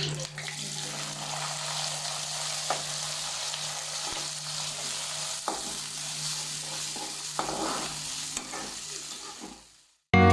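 Cumin seeds and cloves frying in hot oil in a pan, a steady sizzle with a few sharp clicks of a spoon against the pan. The sizzle fades out just before the end.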